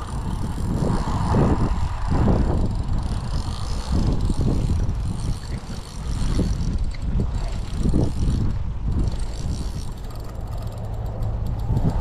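Spinning or fly fishing reel being wound in, its mechanism turning and clicking, with heavy low rumbling noise on the microphone throughout.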